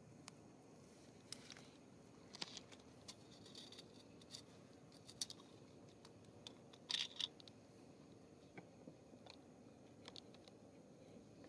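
Near silence with scattered faint clicks and rustles; the loudest is a short cluster of clicks about seven seconds in.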